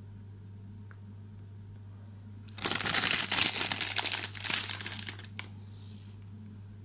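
A packet of chocolate chips crinkling loudly for about three seconds as a hand rummages in it for more chips to sprinkle on the cake.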